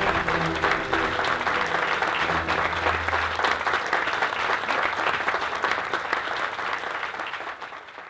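Crowd applauding, a dense crackle of many hands clapping. Music with low bass notes runs under it for the first few seconds and then stops, and the applause fades out near the end.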